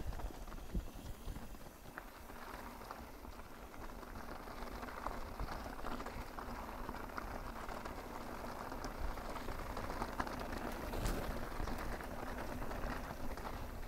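Mountain bike rolling down a dirt trail: steady crackle of tyres over loose dirt and small rocks, with scattered small clicks and knocks from the bike.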